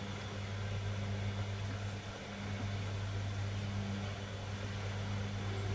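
Servis Quartz MK601 washing machine running through its cycle, a steady hum.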